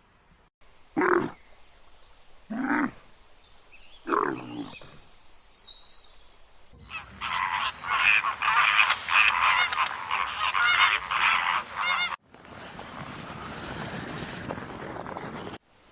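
Animal calls from several clips edited together: three short pitched calls about a second and a half apart, then several seconds of dense, rapid chattering calls, then a steady hiss that cuts off suddenly.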